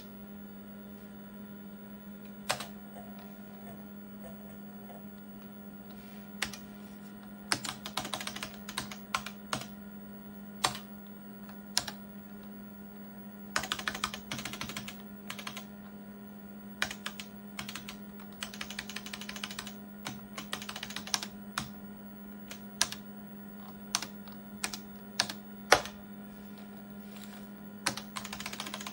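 Keys typed on an IBM PC/AT keyboard: single sharp clicks and a few short quick runs of keystrokes, over a steady low hum.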